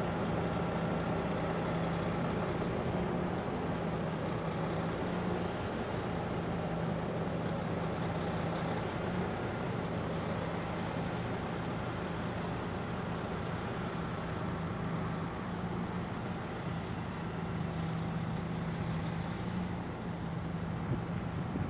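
Diesel engine of a semi-trailer prime mover running steadily at low revs, a constant drone while it pulls a transportable building on a low-loader trailer.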